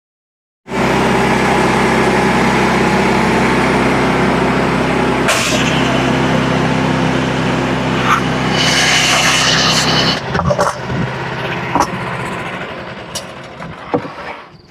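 Frontier OS27 portable sawmill's engine running steadily under load as the band saw cuts, starting abruptly after a brief gap. About ten seconds in the steady engine sound stops, and scattered clanks and knocks follow as it dies away.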